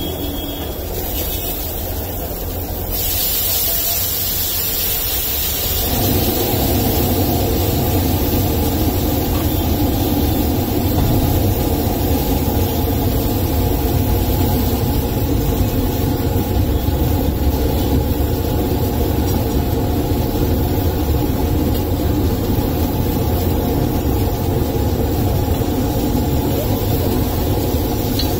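Steady sizzling of chopped onion, tomato and chilli frying on a hot flat iron griddle, over a continuous low hum that grows louder about six seconds in.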